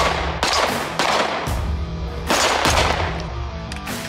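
Background music with a heavy beat, with pistol shots from the Aeonic Arms Alpha Comp steel-frame Glock-pattern pistol mixed in.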